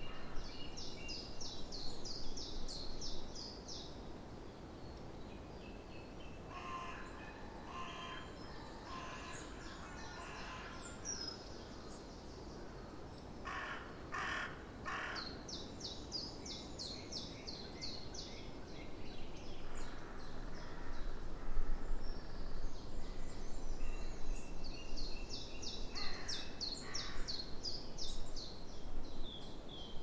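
Spring birdsong: a songbird sings the same fast, high trilling phrase of about three seconds, three times. Between the phrases come lower calls, among them three short calls in quick succession around the middle, with a faint low rumble in the second half.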